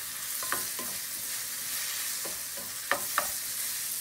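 Shrimp and sliced onion sizzling in oil in a nonstick frying pan while a spatula stirs them, with a few sharp clicks of the spatula against the pan, two of them close together about three seconds in.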